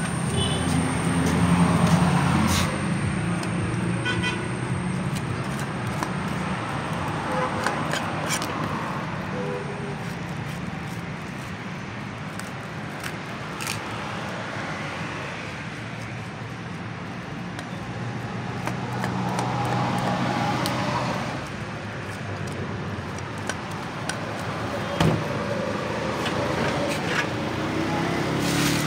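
Road traffic running steadily, swelling as vehicles pass by, with a few short sharp knocks of a large knife striking a wooden chopping block.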